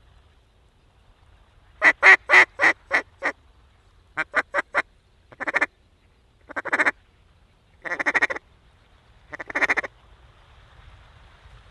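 Duck call blown to imitate a hen mallard: a falling run of about six loud quacks, four quick short quacks, then four longer drawn-out quacks about a second or more apart.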